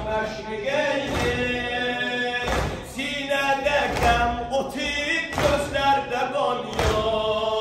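Male voices chanting a religious lament, with deep thuds at a steady beat about every second and a half, in time with the chant.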